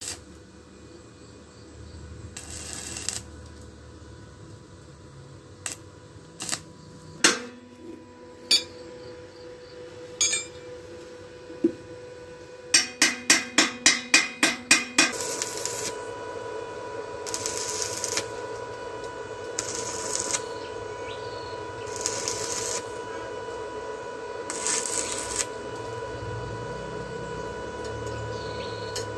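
Workshop metalwork on a steel frame: scattered sharp metallic clicks and clinks, then a quick run of about eight taps. After that comes a steady hum with short bursts of arc-welding crackle every two to three seconds, as tack welds are laid.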